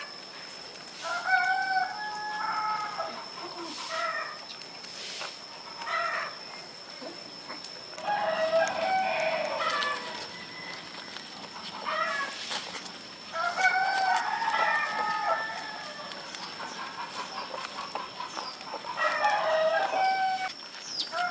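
Rooster crowing repeatedly, about four long crows, with shorter calls in between.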